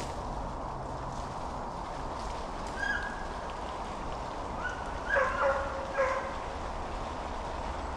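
Distant hunting hounds baying: one short call about three seconds in, then a few louder bawls between five and six seconds, over a steady outdoor hiss.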